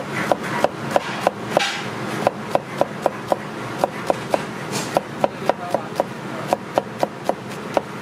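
Chinese cleaver slicing scallions on a wooden cutting board: sharp, regular knocks of the blade striking the board, about three a second, with two short pauses.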